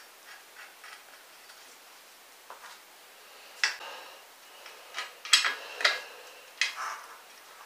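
Metal hand tool working on a motorized-bike engine mount and frame hardware: a few faint ticks, then sharp metallic clinks and clicks from about three and a half seconds in.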